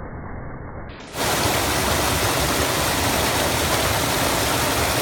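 Creek water running over rocks, a steady rush. For about the first second it is dull and muffled; then it switches abruptly to a louder, brighter, hissing rush.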